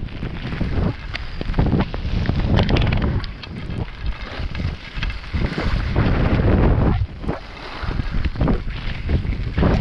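Wind buffeting the helmet camera's microphone during a downhill snow run, with surging hiss and scrape of edges carving across the groomed snow as the rider turns.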